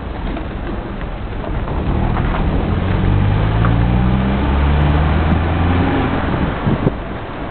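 Road and engine noise of a moving car. A low engine hum grows louder from about two seconds in and fades again around six seconds.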